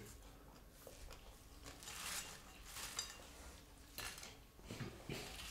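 Faint clinks and scrapes of plates and cutlery on a table as food is served, with a few separate light knocks.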